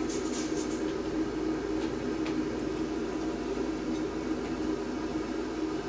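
A steady mechanical hum with a low drone and a faint hiss, unchanging in level.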